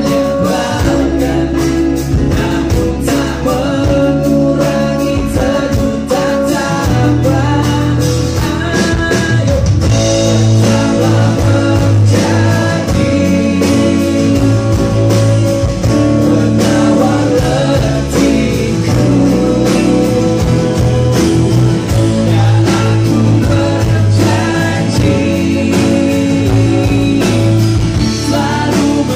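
Live band playing an acoustic pop-rock song: strummed acoustic guitar and electric guitars with a male lead vocal over a steady beat.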